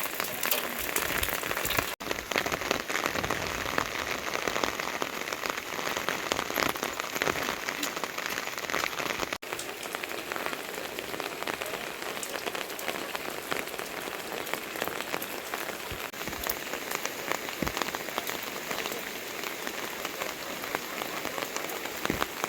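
Steady rain falling, a dense hiss made up of many individual drops striking a surface. The sound cuts out for an instant twice.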